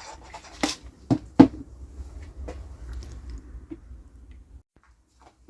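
A few sharp knocks and clunks of hard objects being handled and set down, the loudest about a second and a half in, over a low handling rumble that stops near the end.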